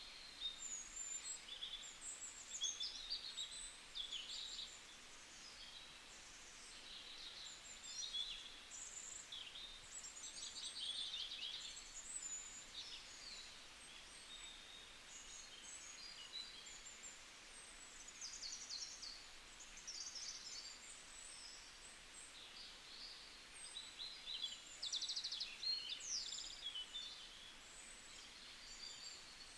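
Several small birds chirping and trilling, overlapping short high-pitched calls coming one after another over a faint steady hiss.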